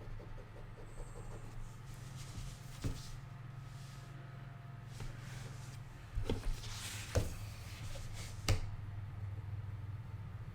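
A steady low room hum, typical of a running fan and equipment, with about five light, sharp knocks or clicks scattered through it: one about three seconds in, a quick pair a little after six seconds, and single ones near seven and eight and a half seconds.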